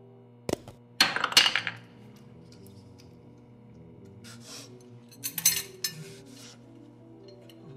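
Metal and crockery clinking and clattering in a few short clusters: a knock about half a second in, a clatter around one second, and more clinks about four and a half and five and a half seconds in. Soft background music plays underneath.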